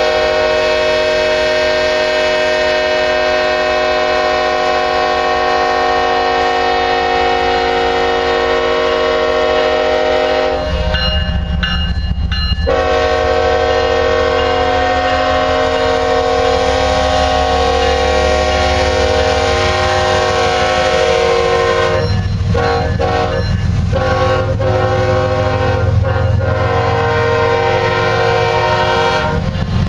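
Diesel locomotive air horns sounding in long sustained blasts, broken by a short pause about ten seconds in and by several brief gaps later on. Underneath, a heavy diesel engine rumble grows stronger from about a third of the way through.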